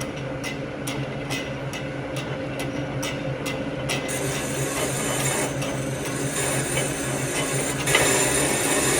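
Lathe running with a steady motor hum and a regular tick about twice a second. About four seconds in, the cutting tool starts cutting into the metal pulley with a continuous hissing scrape, loudest near the end.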